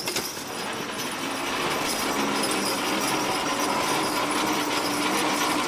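Weighted sled loaded to 3,600 lb dragged across a dirt track by a team of draft horses: a steady scraping, grinding noise that grows a little louder over the first couple of seconds.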